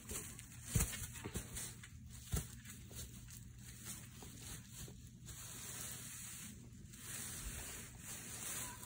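Dry fallen leaves rustling and crunching on a trampoline mat as a boy lies in them making a leaf angel, with a couple of soft thumps in the first few seconds.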